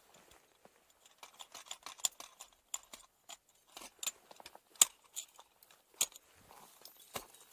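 Irregular sharp clicks and clinks of ice-climbing hardware being handled close by, with one loud clink a little before the five-second mark and another about a second later.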